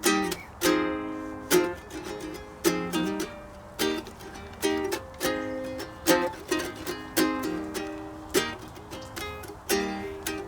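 Background music: a strummed plucked-string tune, a new chord about once a second.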